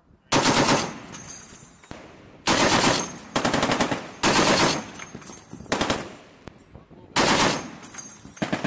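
Browning M2 .50 caliber heavy machine gun firing a string of short bursts, about six in all, each lasting under a second, with the reports ringing away between bursts.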